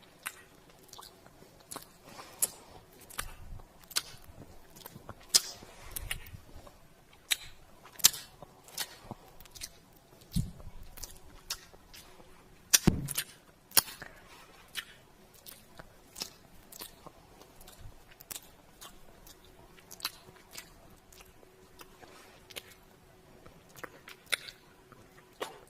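Close-up kissing and lip-smacking sounds: a string of short wet smacks at irregular intervals, roughly one or two a second, a few of them louder.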